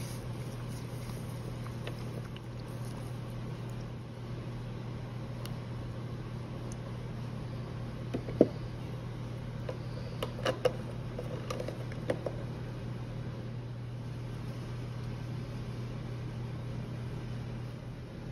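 A steady low mechanical hum, with a handful of sharp clicks and taps near the middle, the first and loudest a little past eight seconds in.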